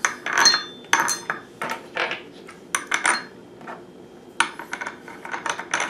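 Steel washers and a bolt clinking and tapping against a steel trailer-hitch ball mount as they are fitted by hand: a few irregular metal clinks with a short ring, then from about four seconds in a quick run of small clicks.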